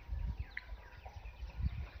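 Outdoor ambience of faint, short bird chirps, with a brief higher note about half a second in, over an irregular low thumping rumble.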